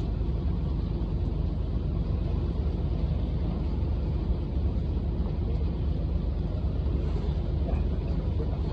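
Steady low rumble of a fishing boat's engine running while the boat is underway.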